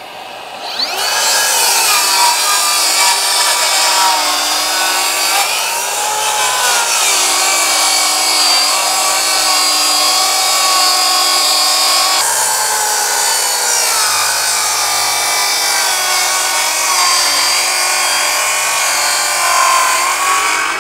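Makita 9-1/4" 36V brushless track saw starting up about a second in and cutting through four stacked sheets of 3/4" plywood in one long pass. The motor runs under heavy load, its pitch wavering as the blade works through the wood.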